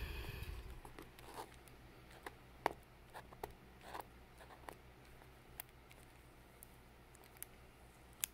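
A fingertip peeling a warmed adhesive Bible index tab off a thin page: faint scattered ticks and crackles of paper and glue letting go, after a brief rustle and bump in the first second.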